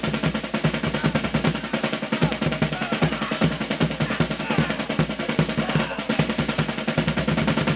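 Fast, dense drumming with a steady driving beat, close to a drum roll, with a faint melody above it.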